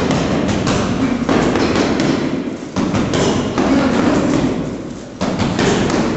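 Gloved punches thudding into a heavy punching bag in fast flurries, the dense run of blows dipping briefly a few times. This is a speed drill of rapid punch series on the bag.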